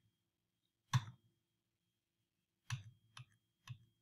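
Computer mouse clicking four times: one click about a second in, then three quicker clicks near the end, as the presenter advances a slideshow.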